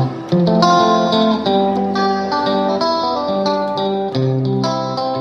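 Intro music: a melody of plucked string notes over a steady low accompaniment.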